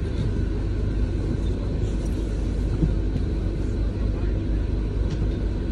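Steady low rumble inside the upper deck of a double-decker bus standing with its engine running.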